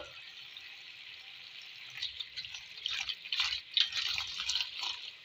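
Cold tap water running onto boiled macaroni in a metal colander, splashing irregularly; the splashing grows louder about two seconds in. A short click comes at the very start.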